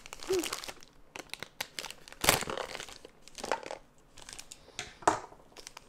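Paper wrapping crinkling and rustling as a small parcel is handled and cut open with scissors. There are a few sharper, louder snaps about two and five seconds in.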